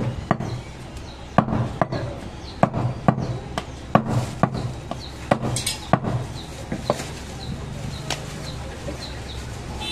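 Cleaver chopping goat meat on a wooden chopping block: about a dozen sharp strikes at an uneven pace, roughly one or two a second, stopping about eight seconds in.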